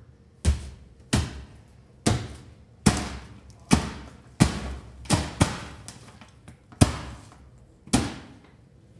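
A run of heavy punch impacts from a fistfight, about ten blows landing irregularly roughly a second apart, each a hard thud with a short ringing tail.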